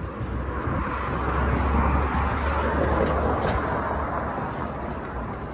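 A road vehicle passing on the street alongside, its tyre and engine noise swelling for a couple of seconds and then fading, over a steady low rumble.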